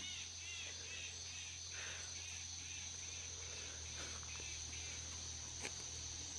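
Insects calling: a steady high-pitched drone with a short chirp repeating about three times a second.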